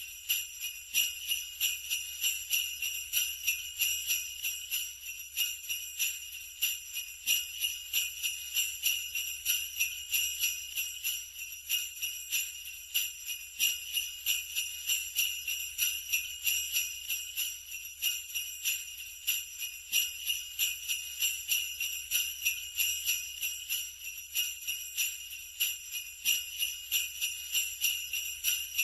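Sleigh bells shaken continuously in a steady, even rhythm: a bright, high jingle with no pauses.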